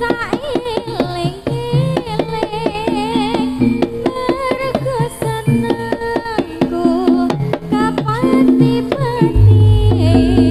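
Live jaranan accompaniment music: drum strokes and pitched percussion under a wavering melodic line, with a deep low note coming in about nine seconds in.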